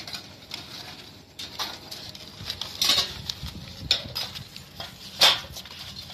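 Lumps of charcoal clinking and knocking against each other and the metal box of a small barbecue grill as they are piled by hand, in irregular knocks, the loudest about five seconds in.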